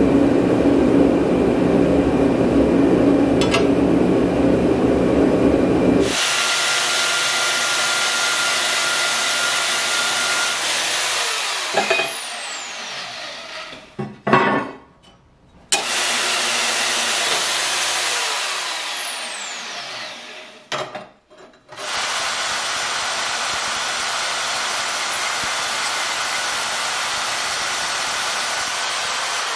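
Corded Milwaukee portable band saw cutting rusty 3/16-inch steel plate, its motor running steadily under load as the blade goes through the steel. It winds down twice between cuts and starts again.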